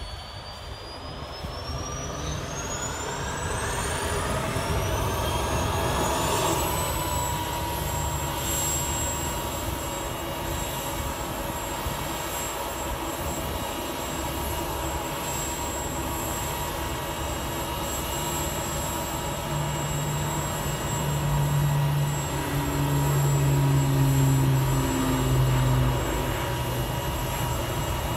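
Sikorsky S-64 Skycrane helicopter's turbine engines spooling up on the ground before takeoff: a high whine rises steadily for the first six seconds or so, then holds level. Under it runs a steady low rotor hum that grows louder about twenty seconds in.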